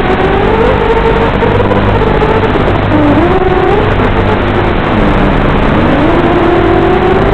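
FPV racing quadcopter's motors whining through the onboard microphone, the pitch rising and falling with throttle, dipping about three seconds in and again about five seconds in, over a steady hiss.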